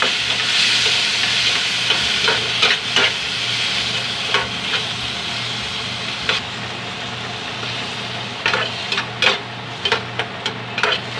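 Chopped tomatoes and red onions sizzling in a metal frying pan, stirred with a metal spatula that scrapes and knocks against the pan. The sizzle is loudest just after the tomatoes go in and eases after about six seconds, while the spatula strokes come more often near the end.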